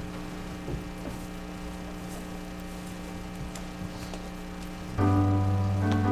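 Steady electrical hum with a few faint ticks. About five seconds in, a keyboard starts playing a loud, sustained chord.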